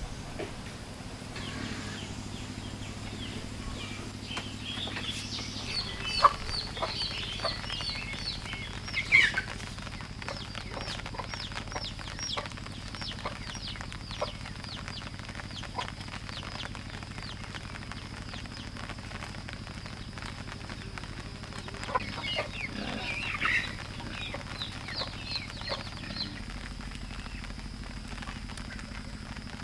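Chickens clucking and calling: runs of short, high, falling calls from about five to thirteen seconds in and again around twenty-two to twenty-six seconds, over a steady low hum.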